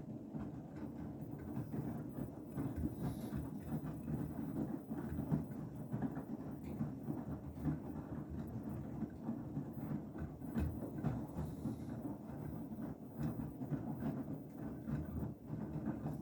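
Beko WTK104121W washing machine drum turning slowly during a Cottons 60 main wash, tumbling a sudsy load through the water with continuous sloshing and irregular soft knocks.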